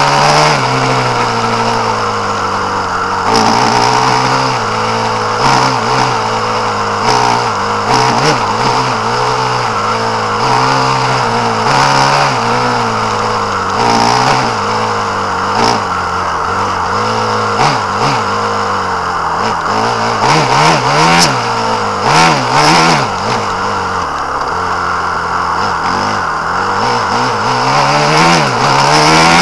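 Small off-road vehicle's engine revving up and down continually as it rides a rough dirt track, with frequent knocks and rattles from the bumps.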